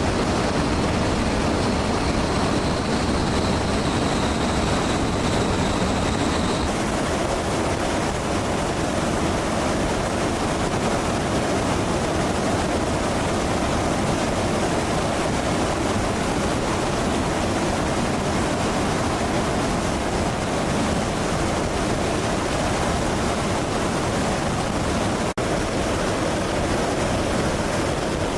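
Steady roar of jet aircraft engine noise, with a thin high whine over it for the first several seconds that stops abruptly. The noise drops out for an instant near the end.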